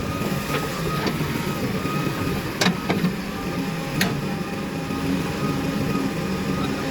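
Diesel engines of a backhoe loader and tractor running steadily during loading, with a few sharp knocks about two and a half, three and four seconds in.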